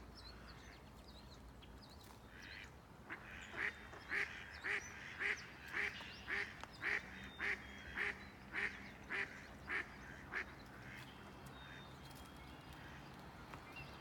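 A duck quacking in a run of about a dozen evenly spaced quacks, roughly two a second, stopping about ten seconds in.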